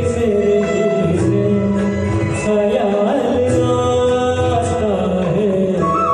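A man singing a melodic song over a backing track with regular percussion.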